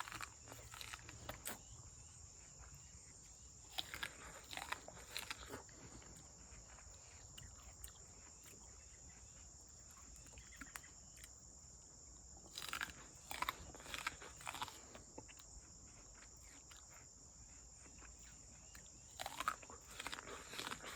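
A person biting into and chewing a raw ear of sweet corn off the cob, in three bouts of short sharp bites and chewing. Under it runs a steady high insect chirring from crickets.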